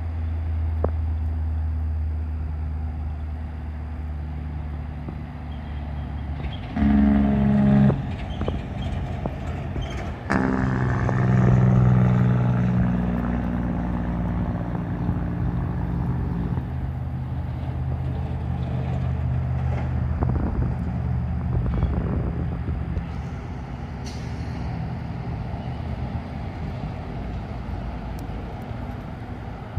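Diesel locomotive running with a steady low engine hum, broken by two louder pitched stretches: a short one about seven seconds in and a longer one starting about ten seconds in and lasting some six seconds. A brief hiss of air comes near the end.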